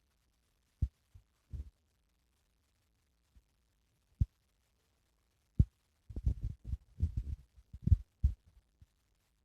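Slime being squished and poked, giving scattered soft low pops. About six seconds in, a quick run of crackly pops follows that lasts about two and a half seconds.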